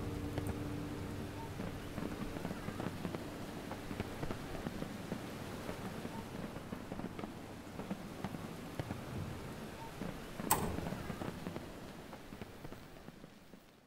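The end of the film's soundtrack: a held string chord fades out in the first few seconds, leaving crackling, rain-like noise with scattered clicks and one sharp crack about ten seconds in. It all fades away near the end.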